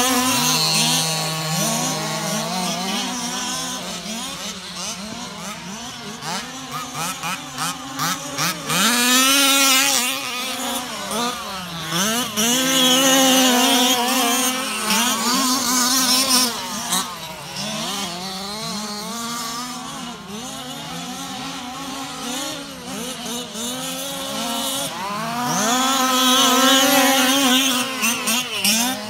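Small two-stroke petrol engines of several 1/5-scale RC cars revving up and down as they are driven, their pitches overlapping and swelling louder at a few close passes.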